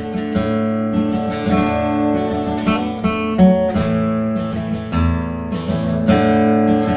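Background music: strummed and plucked acoustic guitar, with notes picked out over held chords.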